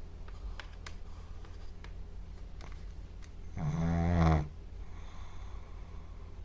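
A sleeping dog snoring: one loud snore about three and a half seconds in, lasting under a second, over a faint steady low hum.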